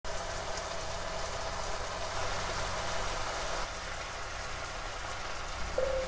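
Smoked duck and vitamin greens stir-frying in a pan in their watery juices, a steady sizzle. A few marimba notes of music come in near the end.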